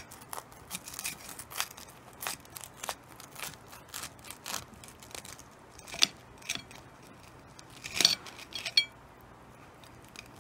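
Kitchen knife sawing through a grilled sandwich's toasted bread crust: a run of crisp crunches and crackles, loudest about eight seconds in, that stops about nine seconds in.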